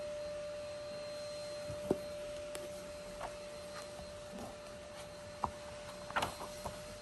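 A paperback book being handled and opened, its pages rustling and turning, with scattered soft taps and a brief flurry of page noise near the end. A steady hum with hiss runs underneath.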